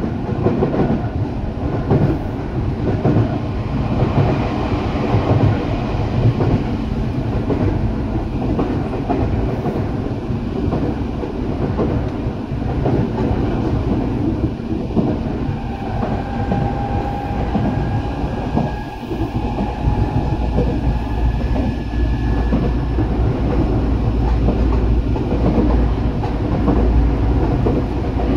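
Eidan 8000 series electric commuter train running, a steady rumble of wheels on the rails. About halfway through, a faint rising whine comes in for several seconds.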